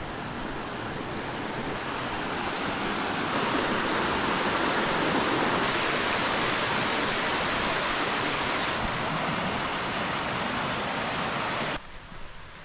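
A rushing creek: a steady rush of water that grows louder over the first few seconds, then cuts off suddenly near the end.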